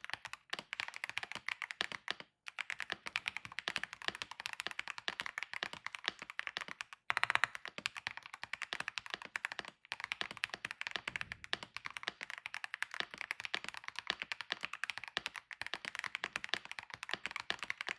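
Fast typing on a Keychron R6 Retro gasket-mounted mechanical keyboard with factory-lubed Keychron Super Banana tactile switches and double-shot PBT OSA keycaps: a dense run of keystroke clacks, broken by brief pauses about two, seven and ten seconds in, with a louder burst of strokes just after the second pause.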